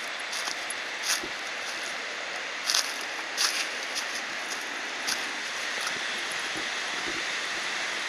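Steady rushing of flowing water, with a few short sharp clicks on top, about a second and again near the three-second mark.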